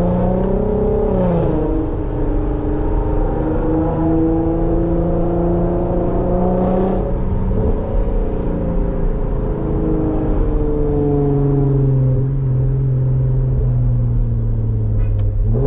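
Infiniti Q50's V6 engine and exhaust running at a steady cruise, its pitch falling as the gears change about a second in, again around seven seconds, and near the end. The exhaust is loud, which the owner calls overly loud.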